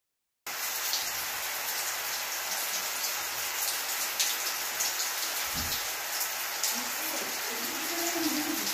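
Handheld shower spraying water steadily onto hair and tile, starting abruptly about half a second in.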